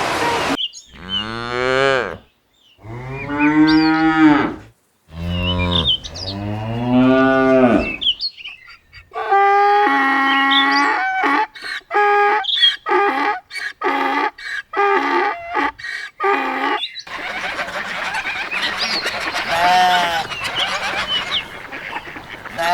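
Cattle mooing: about four long calls, each falling in pitch, over the first eight seconds. A quick run of short honking calls from waterfowl follows, then a noisier stretch with a faint call.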